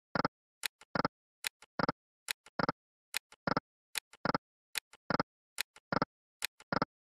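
EGT Burning Hot online slot game's sound effects during fast auto free spins: an even run of short electronic clicks, about two a second, a duller click alternating with a sharper tick as each spin starts and its reels stop, roughly one spin every 0.8 seconds.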